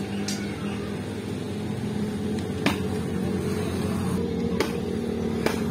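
A few sharp, separate clacks of hand weaving of a bamboo-stick mat, as sticks are set in place and the hanging cord weights knock against them, over a steady mechanical hum.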